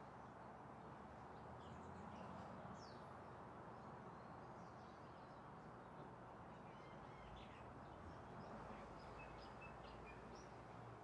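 Faint outdoor ambience: a steady soft hiss, with birds giving short calls here and there.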